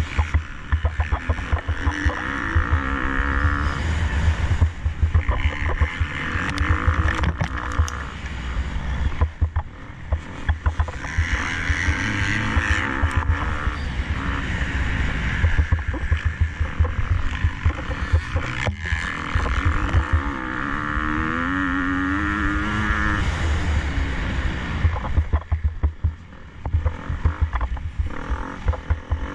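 KTM SX-F 250 motocross bike's single-cylinder four-stroke engine revving hard and backing off again and again, its pitch climbing as it accelerates, over a heavy, choppy low rumble.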